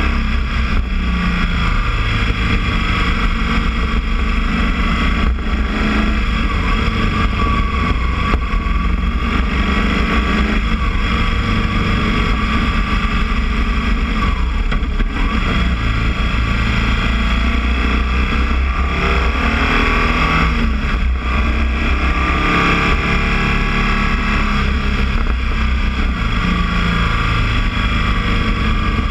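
Motorcycle's boxer engine running under way, its pitch rising and falling several times as the throttle changes.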